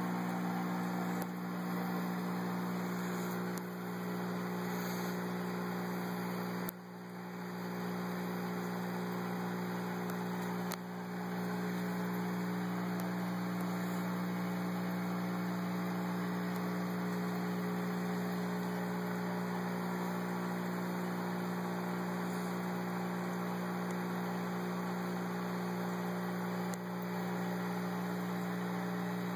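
Aquarium filtration equipment running with a steady electrical hum over a soft hiss. The sound briefly drops out about 7 seconds in and dips again about 11 seconds in.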